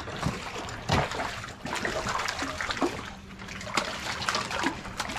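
Water splashing and trickling, with many small irregular splashes.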